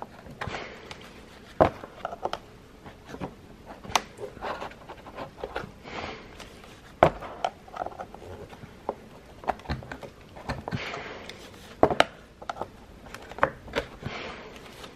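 A thin metal tool scraping and clicking against a stroller wheel's axle nut and plastic hub as it is taken apart, with gloved hands rubbing on the wheel. The scraping comes in short irregular strokes, and several sharp clicks stand out.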